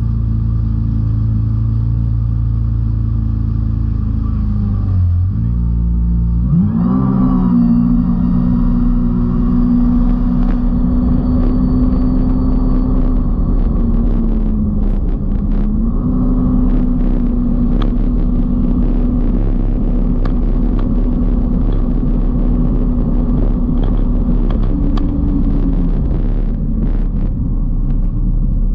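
Kawasaki Ultra 310 LX jet ski's supercharged four-cylinder engine running under way, with water rushing past the hull. About six and a half seconds in the throttle opens and the engine note climbs quickly, then holds high and steady, dipping briefly twice and easing off near the end.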